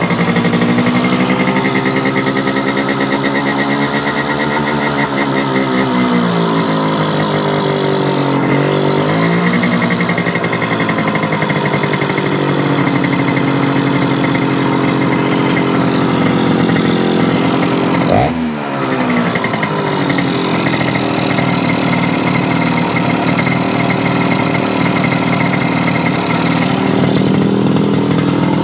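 Yamaha YL2C Trailmaster 100's single-cylinder two-stroke engine running on the stand, its revs wandering up and down and dipping sharply once about two-thirds of the way through before picking back up. The owner takes the faltering for fuel starvation in the carburetor, as if it were running out of gas.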